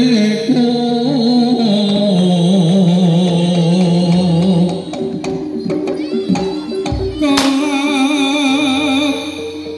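Live jaranan music: a Javanese percussion ensemble playing under a wavering melodic line, with a low thump and then a sharp crack about seven seconds in.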